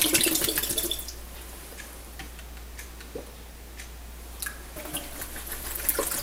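Water splashing and sloshing as a plastic measuring cup is shaken and emptied into a stainless steel sink, rinsing it clean of residue. It is busiest in the first second, then thins to a few drips and small clicks, and the splashing picks up again near the end.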